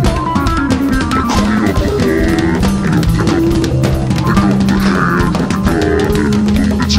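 Rock music with a drum kit and guitar playing steadily.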